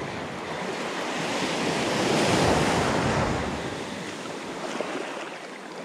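A small wave washing up the sand at the shoreline: the surf's hiss swells to its loudest about two seconds in, then fades away as the water draws back.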